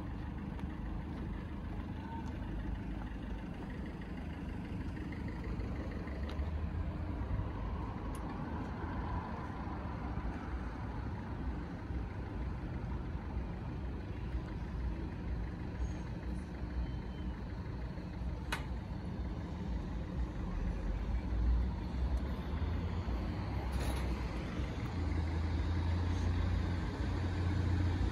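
Class 156 diesel multiple unit's engine running with a low steady rumble, getting louder near the end as the train draws closer.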